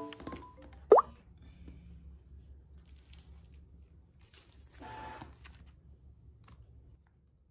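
A single short 'bloop' pop sound effect, sweeping quickly upward in pitch, about a second in. It is followed by a faint low hum and a soft brief rustle around five seconds.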